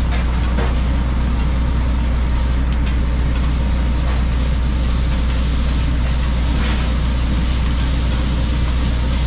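Diced meat and onions sizzling on a flat-top griddle, over a loud, steady low machine hum. A spatula scrapes the griddle now and then.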